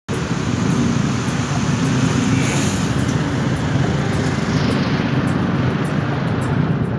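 Steady rumble of road traffic on a city street.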